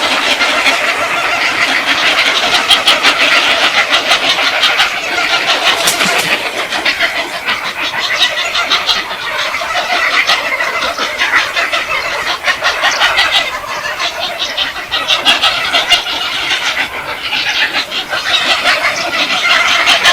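A flock of birds calling and chattering all at once, a dense, continuous din.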